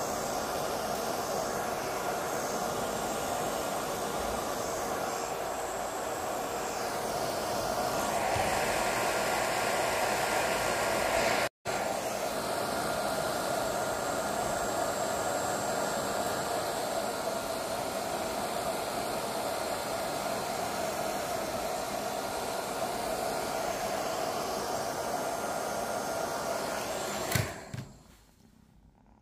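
Handheld hair dryer blowing steadily over a wet kitten's fur, switched off with a click about a second before the end.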